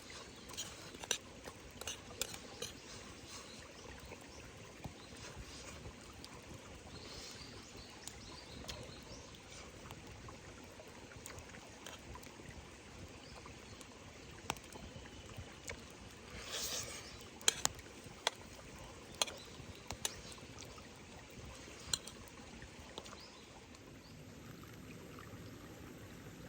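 Steady rain falling, with scattered single drops tapping sharply and a brief louder rush of water about two-thirds of the way through.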